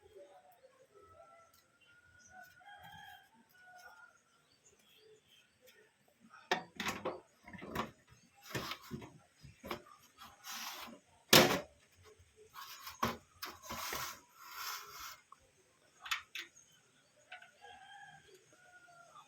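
Metal desktop computer case side panel being fitted and closed, with a run of knocks, clicks and scrapes through the middle, the loudest about eleven seconds in. A rooster crows in the background near the start and again near the end.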